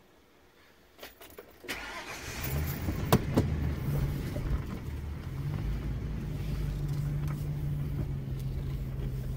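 Car engine being started: a few clicks, then the starter turning and the engine catching about two seconds in, settling into a steady idle.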